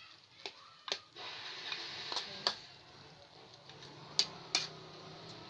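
Spatula clinking and scraping against a thin metal wok as chicken pieces in sauce are stirred: about six sharp clinks, some in quick pairs, over a steady sizzle that grows louder about a second in.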